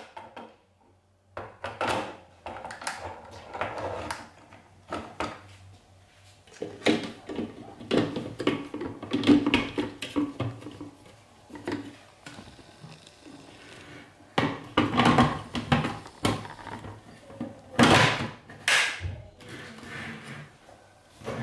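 Plastic parts of a hand blender's food-processor attachment being handled and fitted together: irregular knocks, clicks and scraping as the insert goes into the bowl and the lid is pressed on.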